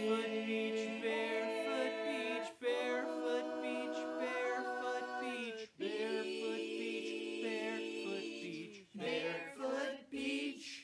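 Several voices singing together without instruments, in a cappella harmony: three long, held phrases, then two short ones.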